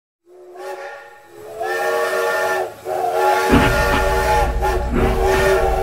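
Steam locomotive whistle sounding a series of long, chord-like blasts; the first is faint and the later ones louder. A low rumble joins about halfway through.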